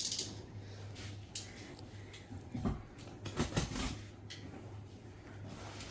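Cardboard packaging being handled: scattered light knocks and clicks, with a few duller thumps near the middle, over a low steady hum.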